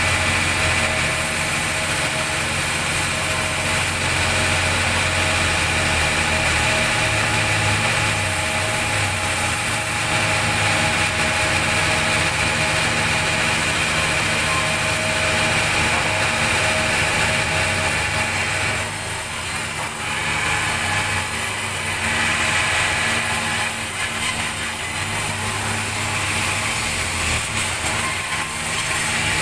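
Band sawmill running steadily, its motor and spinning blade giving a continuous hum with several steady tones, dipping slightly in level a few times.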